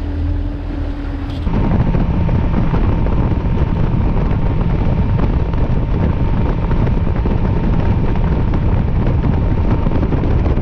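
Boat motor running at speed over the water, with heavy wind noise on the microphone; it gets louder about a second and a half in and cuts off suddenly at the end.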